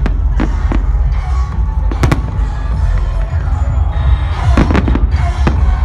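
Fireworks bursting in a series of sharp bangs, a cluster about two seconds in and another near the end. They go off over loud electronic dance music with a heavy, continuous bass.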